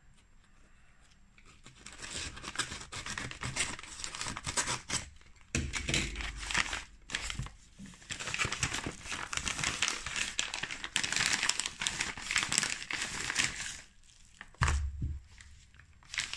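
Padded kraft-paper mailer being opened and its bubble-wrapped contents pulled out: dense crinkling and rustling of paper and plastic that starts about two seconds in and goes on with short pauses. There is a dull thump near the end.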